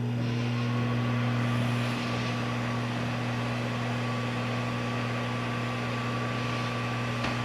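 Microwave oven running with a steady low hum, with a faint click near the end.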